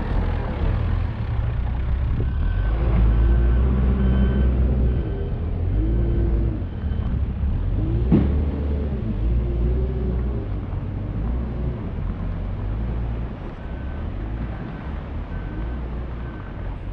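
Heavy vehicle engine running loudly, its pitch rising and falling, while a reversing alarm beeps about twice a second in two spells. There is a single sharp knock about halfway through.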